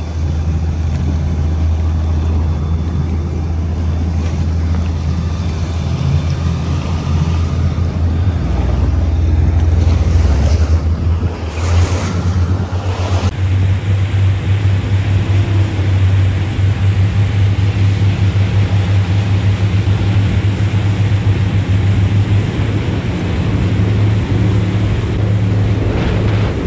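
Boat engine running steadily with a low hum, with water rushing and wind buffeting the microphone; a brief louder rush of noise comes about halfway through.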